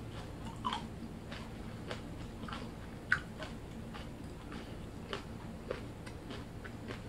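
Faint short clicks, roughly two a second, over a low steady hum, with one sharper click about three seconds in.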